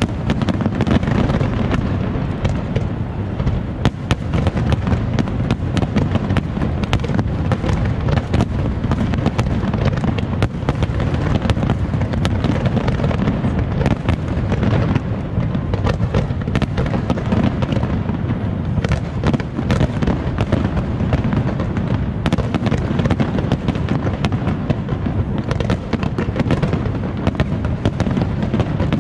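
A large aerial fireworks display going off in a continuous barrage: many sharp cracks and bangs in quick succession over a steady low rumble, with shells bursting overlapping one another.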